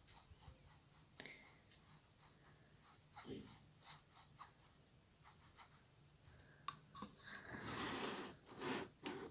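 Faint rubbing and scratching on a cotton shirt spread as a cat's bedding, a string of small scratches and rustles, turning into a longer, louder rustle near the end.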